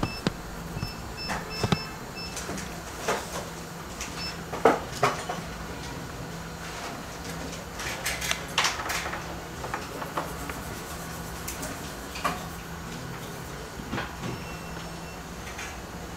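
Scattered light clicks and knocks of handling tools and a clamped phone motherboard on a repair bench, over a steady low hum. A few short high beeps sound in the first couple of seconds and again near the end.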